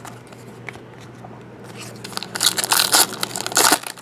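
Crinkling and crushing of a foil trading card pack wrapper being handled, in a dense run of crackles starting about two seconds in and lasting under two seconds.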